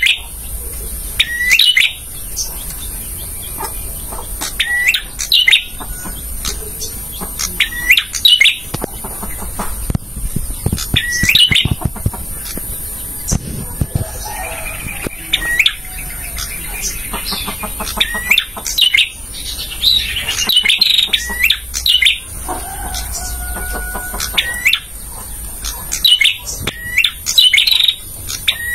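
Male prenjak (a prinia) singing: short, sharp, upswept call notes repeated every two to three seconds, with a busier scratchy, chattering stretch near the middle.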